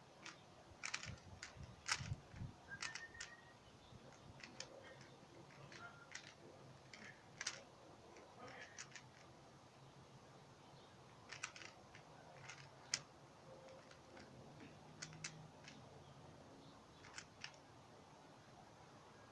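Faint, irregular clicking of a Rubik's cube's plastic layers being turned by hand, in short scattered runs with pauses between.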